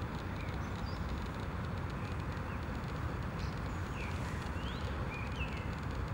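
Steady low rumble of distant traffic, with a few faint, short chirps of small birds scattered through it.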